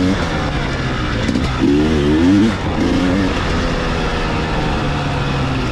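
Dirt bike engine under way, its revs rising and falling as the throttle is worked, loudest about two seconds in.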